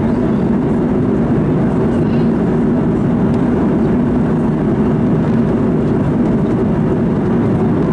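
Steady cabin noise inside an Airbus A310-300, a constant low rumble of engines and airflow with no change in level.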